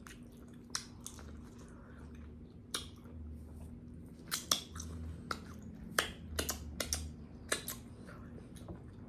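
Close-up mouth sounds of eating corn on the cob and potatoes: wet smacking clicks and chewing at an irregular pace, busiest in the second half.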